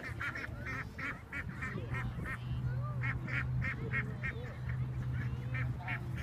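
A small flock of white domestic ducks quacking in a rapid series of short calls, about three a second, with a brief pause about halfway through, over a low steady hum.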